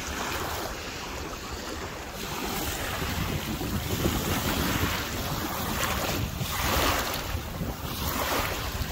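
Small waves breaking and washing up over sand at the water's edge, swelling louder several times, with wind buffeting the microphone.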